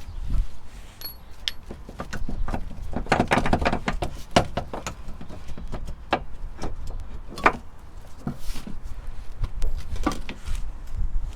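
Irregular metal clicks and clunks of hand tools and car suspension parts being handled, with a quick run of clicks about three seconds in and a sharp single knock past the middle.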